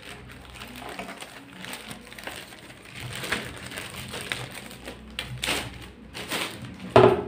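Clear plastic wrapping crinkling and rustling in irregular crackles as it is pulled off a picture frame, with one louder, sharp noise near the end.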